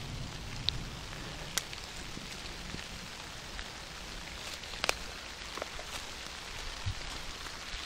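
Thunderstorm rain falling steadily, a continuous hiss with scattered sharp ticks.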